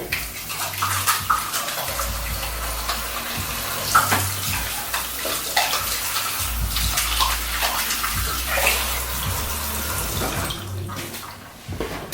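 Kitchen tap running into a sink: a steady splash of water with a few small knocks. It stops near the end.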